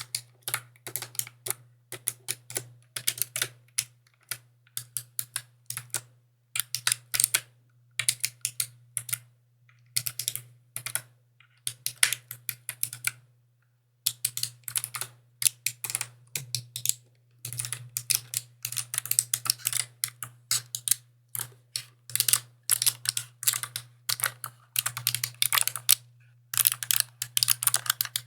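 Mechanical keyboard being typed on: keys clicking in quick runs of keystrokes, with a short pause a little past halfway.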